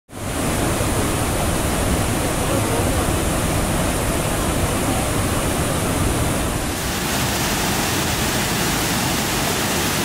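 Waterfall in full monsoon flow, a steady loud rush of water pouring over rocks. It fades in at the start, and its tone shifts slightly about two-thirds of the way through.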